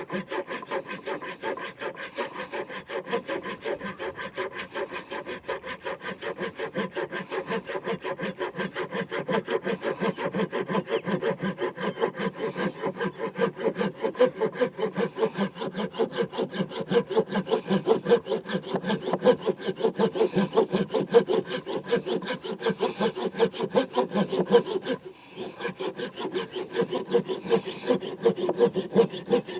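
Kerye mini Japanese-style folding pull saw, fine-tooth blade, cutting through a stick of wood with quick, even back-and-forth strokes. The strokes stop briefly near the end, then resume.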